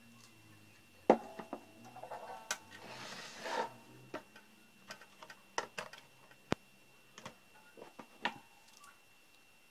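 Handling noise from a steel electrical enclosure being moved and repositioned by hand: a sharp metallic knock about a second in, a brief scraping clatter around three seconds in, then scattered light clicks and taps.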